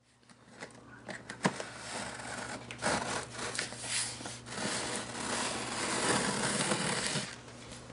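Blade slicing along the taped seam of a cardboard box: irregular scraping and tearing of packing tape and cardboard, with a click about one and a half seconds in and a longer, steadier cut from about three seconds in until near the end.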